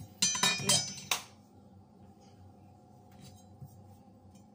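Kitchenware clinking and clattering, a quick run of sharp, ringing knocks in the first second or so as things are handled at the counter, then quiet with a faint steady hum.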